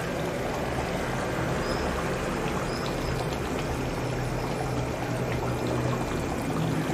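Thick chicken curry boiling in an iron pan on the stove: a steady bubbling hiss with a few faint pops.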